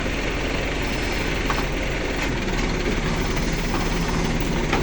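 Diesel truck engine running steadily at low revs, a constant low hum with a few faint knocks over it.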